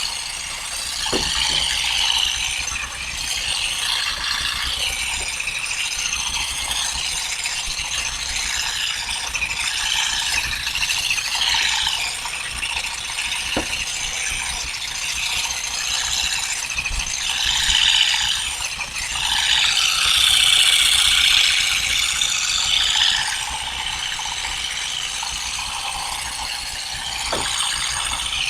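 Continuous dense rattling and clicking of olive harvesting, with a few louder knocks scattered through it and a busier stretch about two-thirds of the way in.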